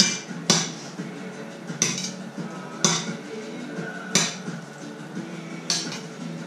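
Metal fork clinking against a stainless-steel pot while stirring spaghetti: about six sharp strikes at uneven intervals over a low steady hum.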